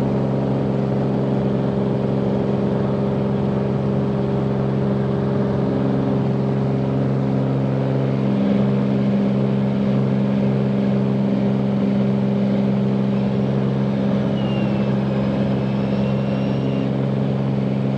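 Light aircraft's piston engine and propeller at full takeoff power, a steady drone heard inside the cabin through the takeoff roll and lift-off.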